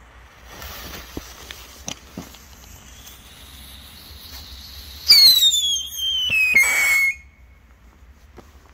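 Funke Silber Heuler (FLH-2) P1 howler firework: the fuse hisses and crackles for several seconds. Then a loud whistle falls steadily in pitch for about two seconds and cuts off suddenly.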